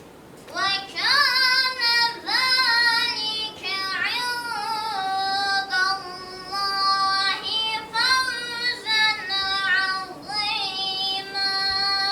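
A girl's solo singing voice, a slow melody sung in phrases with gliding and long-held notes, starting about half a second in.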